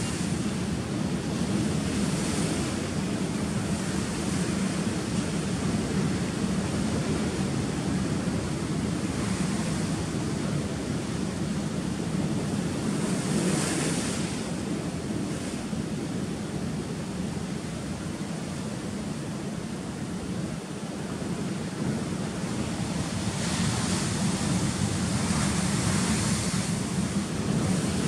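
Ocean surf breaking on rocks: a continuous rushing wash that swells every several seconds as waves come in, with a big wave crashing into spray near the end.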